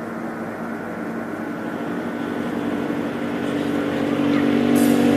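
Sustained instrumental chord held and swelling slowly louder, the opening of a karaoke backing track, with a hiss coming in near the end.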